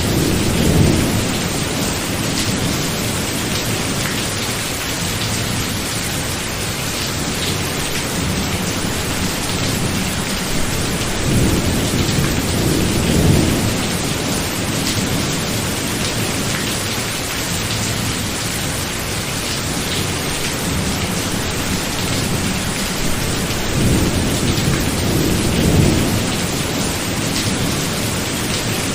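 Thunderstorm: steady rain with low rolls of thunder, about a second in, around twelve seconds in, and again near the end.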